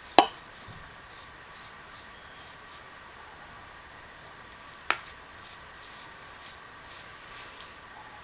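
Two sharp clicks or knocks of hard objects, one just after the start and a second about five seconds later, with faint small ticks between them over a faint steady hum.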